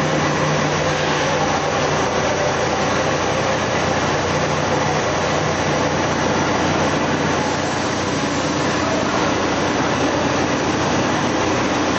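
Kraft paper making machine running: a steady, dense mechanical noise with a low hum underneath.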